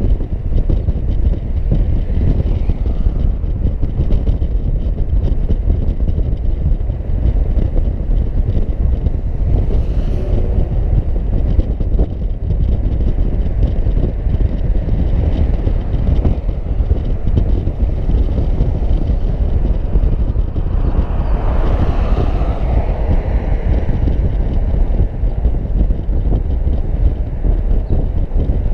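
Steady low rumble of wind buffeting the microphone and road noise from a car driving, with a louder rush of noise about three-quarters of the way through.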